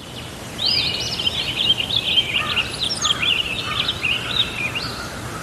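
Birds singing: a fast, varied run of high chirping notes, with a second, lower voice joining about two seconds in.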